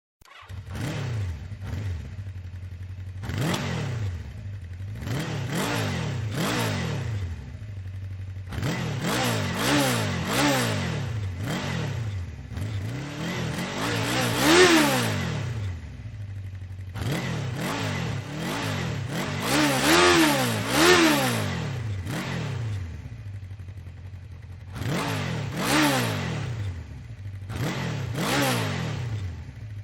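An engine revving up and down again and again, each rev rising and falling in pitch over about a second, over a steady low idle hum.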